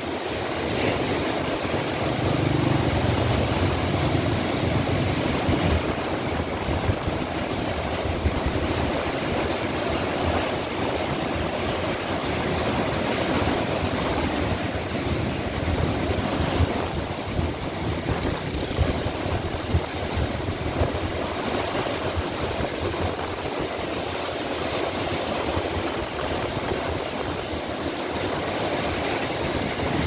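Muddy canal water rushing and churning over a fall, a steady, unbroken wash of white-water noise.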